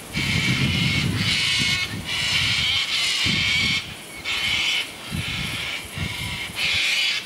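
Birds giving harsh, screeching calls over and over, each under a second long and coming about once a second.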